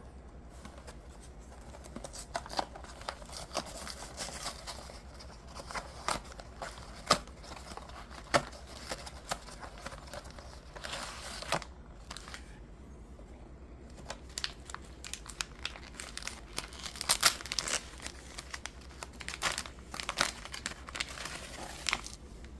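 Plastic snack packaging of strawberry milk mochi crinkling and tearing as it is handled and opened, in crackly spells with a short pause about halfway through.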